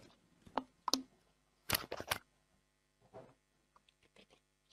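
A few short, sharp clicks and knocks, with a quick run of three about two seconds in and fainter ticks later.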